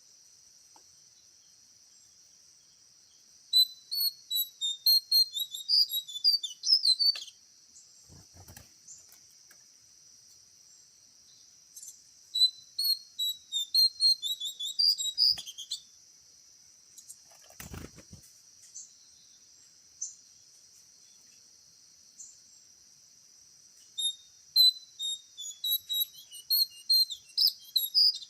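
A songbird calling in three bouts of rapid, high chirping notes, each bout three to four seconds long, over a steady high drone of insects. A few dull knocks sound between the bouts.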